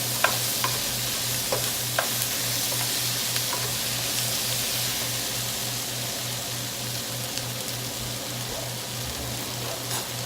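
Onions, garlic and bell pepper frying in a pan over high heat: a steady sizzle, with a spatula clicking and scraping against the pan a few times.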